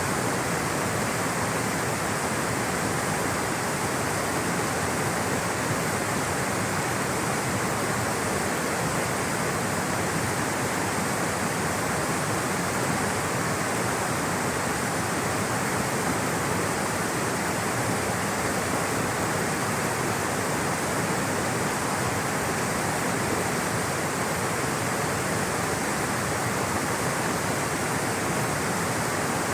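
Rushing water, a stream or small waterfall flowing in a steady, even rush with no breaks.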